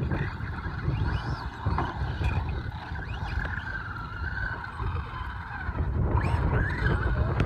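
Radio-controlled Traxxas Slash short-course truck driving, its motor whining and rising and falling in pitch with the throttle. Wind rumbles on the microphone underneath.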